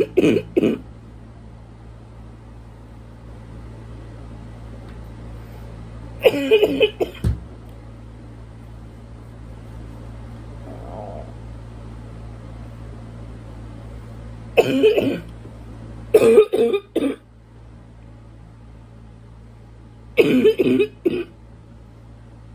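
A woman coughing: a congested, barking cough in short fits of several quick coughs each, coming every few seconds. She puts the congestion down to allergies.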